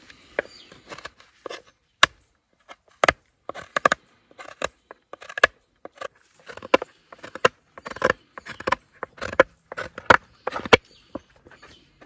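A knife blade cutting and scraping at the hard, dried shell of a calabash gourd bowl, a run of irregular short scrapes and clicks.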